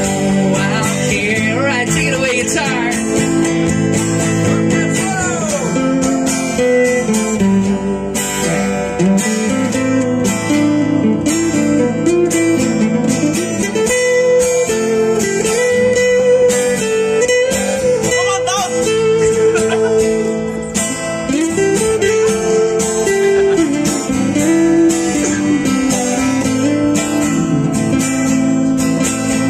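Two acoustic guitars playing a song together, strummed chords with a melody line bending above them.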